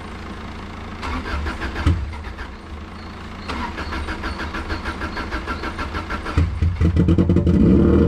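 Subaru Impreza's flat-four engine cranking on the starter with a regular beat, then catching about six and a half seconds in and running louder with a very bad misfire.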